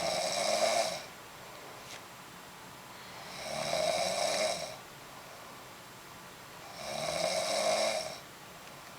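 A sleeping woman snoring in a steady rhythm: three snores about three and a half seconds apart, each lasting a second or so, with quiet breathing in between.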